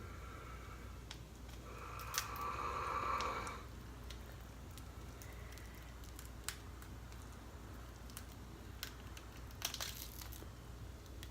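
Scattered sharp clicks and crackles of snow crab leg shells being cracked and picked apart. About two seconds in, a louder drawn-out sound with a steady pitch lasts about two seconds.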